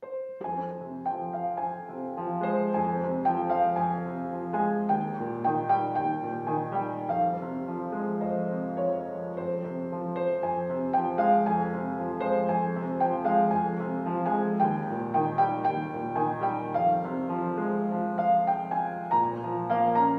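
Piano music that starts suddenly out of silence, a melody of changing notes over held low notes.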